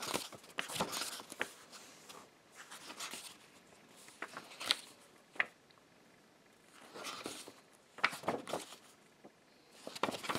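Paper pages of a softcover book being leafed through by hand: irregular rustling and flapping, with a few sharp page snaps and quieter pauses between page turns.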